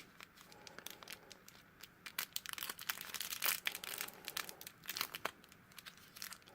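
Small plastic packaging bags crinkling and rustling in the hands as tiny doll accessories are worked out of them: faint, irregular crackles.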